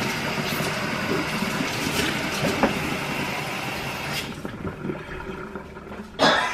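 Kitchen tap running as hands are washed under it: a steady rush of water that dies away about four seconds in. A short, louder noise comes just before the end.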